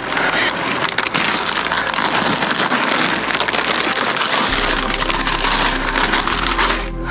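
Plastic potato chip bags crinkling and rustling as they are handled and piled up, a dense crackle of the packaging.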